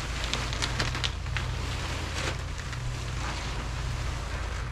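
Plastic tarp rustling and crackling as it is pulled and handled, in quick irregular crackles that are thickest in the first second or so, over a steady low rumble of wind on the microphone.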